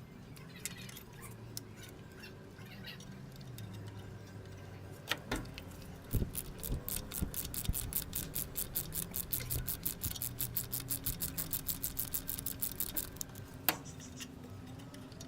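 Socket ratchet clicking rapidly while loosening a spark plug, in footage played four times faster than normal. It sets in with a few knocks, then runs as a fast, even train of about seven clicks a second through the middle, and ends with one louder knock.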